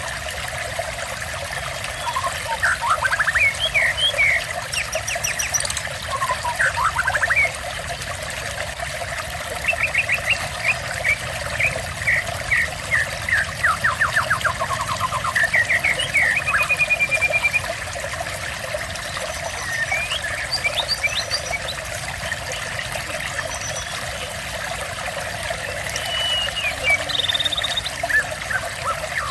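Songbird singing phrases of quick trills, chirps and whistled glides, with short pauses between them, over steady running water.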